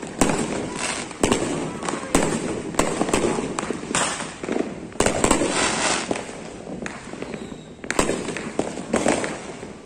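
Aerial fireworks exploding: a string of sharp, irregular bangs, several close together at times, over a continuous noisy wash of crackle and rumble.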